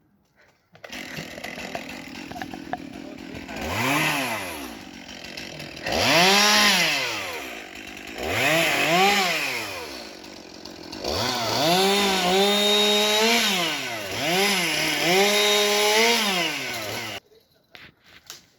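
Two-stroke chainsaw engine running and being revved up and down about five times, settling back to a lower idle between revs. It stops abruptly near the end.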